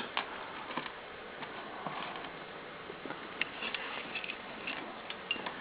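Faint scattered clicks and rustling of hands working cables and plastic connectors inside an open computer case.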